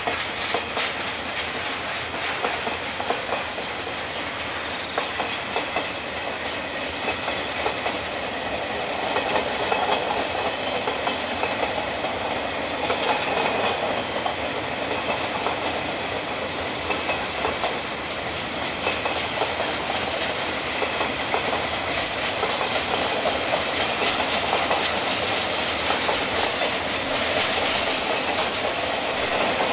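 Freight train wagons rolling steadily past: a continuous rumble of steel wheels on rail, with the repeated clickety-clack of wheels crossing rail joints. The wagons are container flats and curtain-sided wagons.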